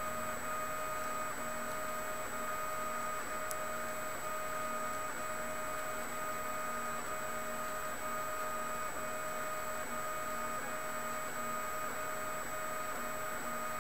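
MendelMax 1.5D 3D printer running, its stepper motors giving a steady whine in a few pitches, broken by short regular breaks as the moves change.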